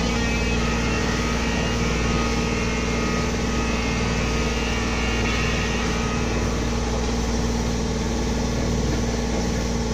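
A sailboat's auxiliary engine running steadily under way while motor-sailing: a constant drone with an even hum and no change in pitch.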